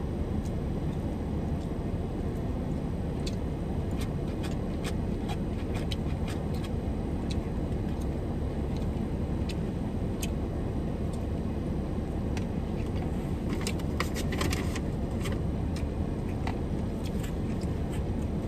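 Steady low hum inside a parked car, with scattered light clicks of eating from a takeout container: utensil taps, packaging crinkles and chewing, in a dense cluster about fourteen seconds in.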